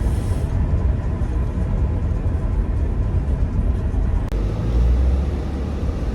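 Car interior noise while driving: a steady low road and engine rumble, with a short click about four seconds in and the rumble swelling briefly just after.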